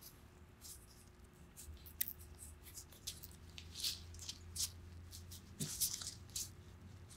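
Gloved fingers working a rubber seal onto the neck of a cast master cylinder body: faint, scattered rubbing and squeaking of nitrile on rubber and metal, with light clicks as the part is turned in the hands.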